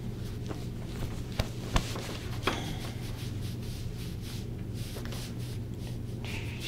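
Quiet room tone: a steady low hum, with three small clicks between one and three seconds in.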